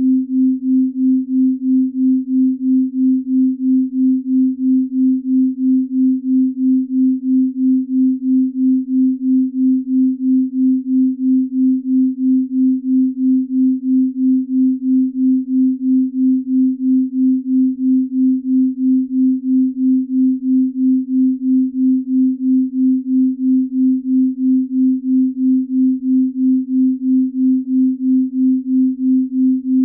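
Binaural beat tone: a single pure, low steady tone that swells and fades evenly about two and a half times a second, a slow beat of the kind used for deep sleep.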